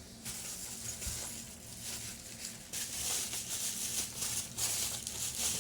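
Rustling and crinkling of packaging being handled, soft and uneven, growing busier about halfway through, with a few faint light clicks.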